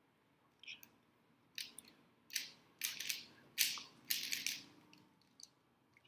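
Rubik's cubes being turned fast during a speed solve: the plastic layers clack and scrape in quick runs of turns, with short pauses between the runs.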